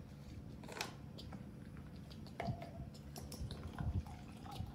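Plastic baby bottles handled with small clicks and taps, and milk poured from one bottle into another.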